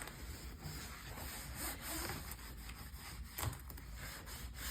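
Damp sponge rubbing back and forth over a laptop's hard plastic casing, a steady scrubbing, with a short knock about three and a half seconds in.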